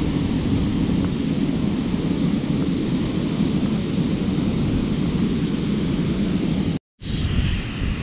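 Steady roar of water pouring over a dam, cutting out for an instant near the end.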